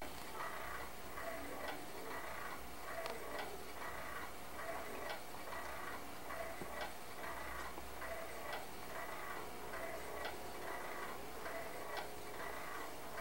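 Easy-Entry baby swing rocking with a sleeping infant, its wind-up drive ticking evenly a little under once a second, with a faint creak in each beat.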